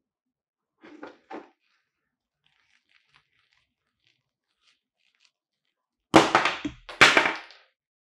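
Eneloop AA batteries handled in leather-gloved hands: two soft knocks about a second in, then near the end two louder rattling clatters, about a second apart, as the cells knock together.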